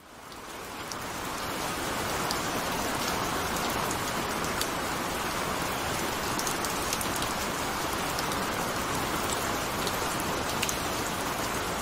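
Heavy rain falling: a steady hiss with scattered drop ticks. It fades in over the first couple of seconds.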